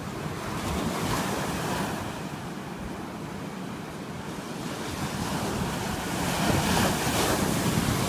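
Pacific surf breaking and washing up the shore, with wind buffeting the microphone. The wash swells about a second in and grows loudest over the last two seconds as a wave breaks.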